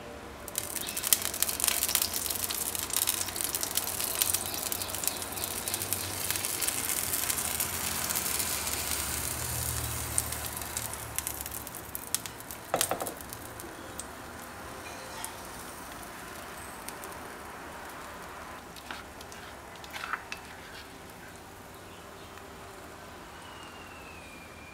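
Pancake batter hitting a hot oiled nonstick frying pan, sizzling and crackling loudly from about half a second in, then dying down after about twelve seconds. A couple of light knocks follow as the batter is spread around the pan.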